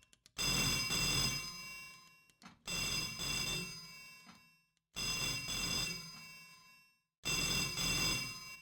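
Telephone bell ringing four times, about two seconds apart, each ring starting sharply and dying away.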